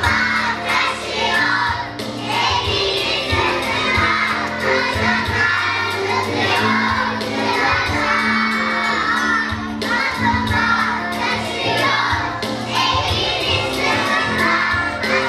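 A group of young children singing together, partly shouting the words, over backing music.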